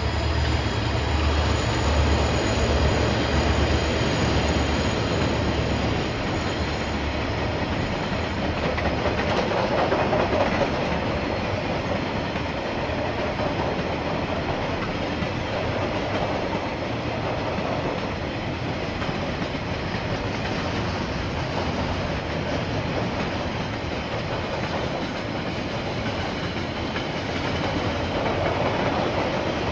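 KiwiRail freight train passing at speed: the steady rolling rumble and clatter of wagons over the rails. In the first several seconds a low diesel-locomotive engine drone underlies it, fading by about six seconds in.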